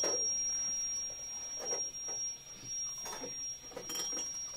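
Glass tea cups clinking on a metal tray as it is set down, then a few soft handling sounds, over a thin steady high-pitched whine.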